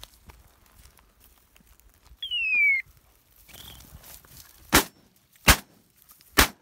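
Three shotgun shots in quick succession in the second half, fired at a flushed quail. Before them comes one sharp falling whistle lasting about half a second.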